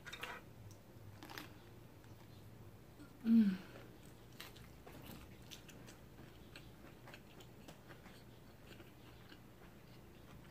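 Close-up mouth sounds of a person chewing a bite of fresh rice-paper spring roll: soft wet smacks and small clicks. About three seconds in, a brief hummed 'mmm' falling in pitch.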